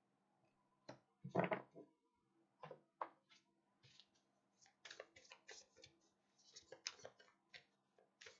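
Tarot cards being shuffled and handled: a run of short clicks and rustles, the loudest a little over a second in.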